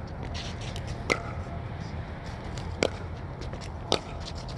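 Pickleball paddles striking the ball during a rally: three sharp pops about a second and a half apart, with fainter ticks between them over a steady low rumble.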